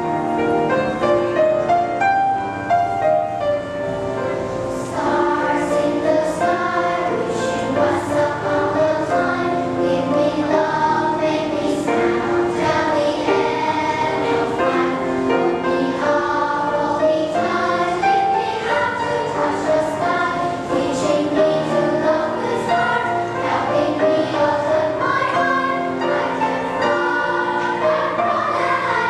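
Children's choir singing in unison and parts. A piano introduction comes first, and the choir comes in about four or five seconds in.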